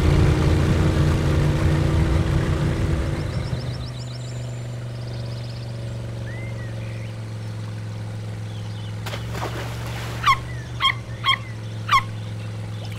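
Motor of a cartoon jeep-boat running with a rumble that dies down after about three seconds into a steady low hum. Near the end come four short squeaks from a baby smooth-coated otter.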